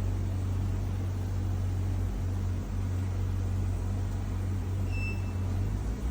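Steady low hum of a running machine motor, with a brief high-pitched beep about five seconds in.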